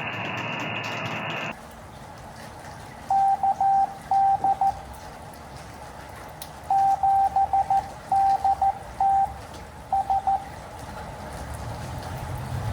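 Morse code (CW) tones from an Elecraft KX2 ham radio transceiver: dits and dahs at one steady pitch in three groups with pauses between, over a low receiver hiss. It opens with about a second and a half of radio hiss that cuts off suddenly.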